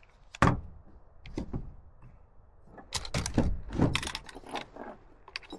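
Firearms being handled and set down on a hard surface: a single thunk about half a second in, then a cluster of clunks and metallic clicks and rattles about three seconds in.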